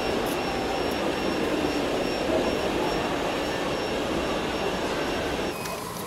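Sand and gravel scraping and grinding as a model tractor's land-leveling blade pushes a heap of soil, with a faint high whine from the model's motor; the scraping stops abruptly near the end.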